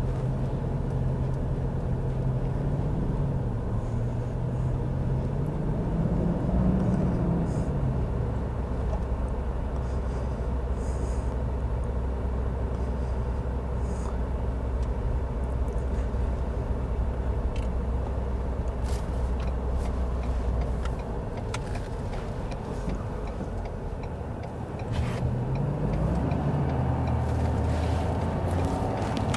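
Vehicle engine and road noise heard inside the cab while driving, a steady low drone with the engine pitch rising briefly twice, about 5 seconds in and again near the end.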